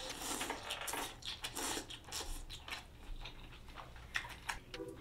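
A person slurping up a mouthful of pho noodles near the start, then chewing, with many small mouth clicks.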